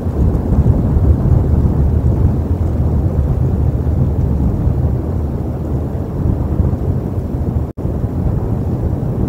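Wind buffeting an outdoor nest-camera microphone: a loud, steady low rumble. The sound drops out for an instant near the end.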